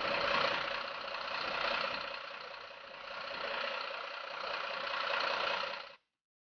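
Mercedes-Benz Atego fire engine giving out a steady sound for about six seconds, swelling and dipping a few times, then cutting off suddenly.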